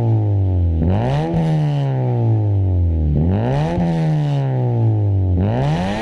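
Exhaust of a Honda Civic FD through an HKS burnt-tip axle-back muffler with the resonator deleted, revved three times, each rev climbing quickly and then falling away slowly.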